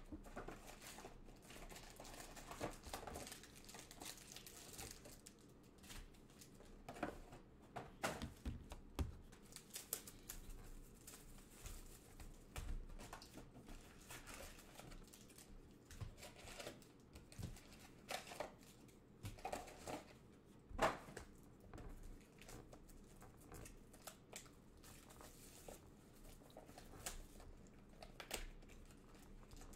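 Faint crinkling and rustling of plastic packaging being handled, with scattered light clicks and taps.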